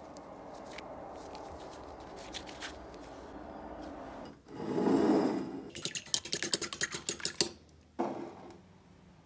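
Nitrile-gloved hands working soft mashed-potato croquette dough: a low rubbing, a louder squish about halfway through, then a quick run of sticky clicks.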